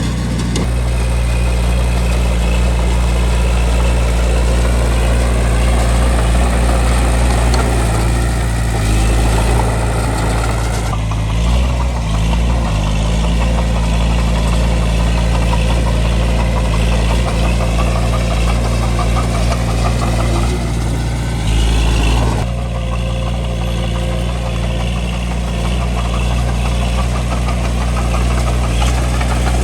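Bulldozer's diesel engine running steadily while working dirt, its note changing about 11 seconds in and again near 22 seconds.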